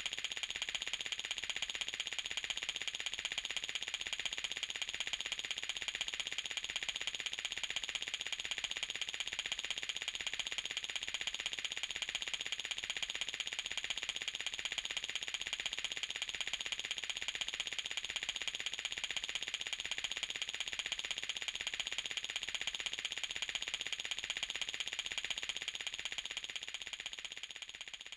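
A continuous electric alarm, a fast steady ringing buzz that holds at one pitch and fades out near the end.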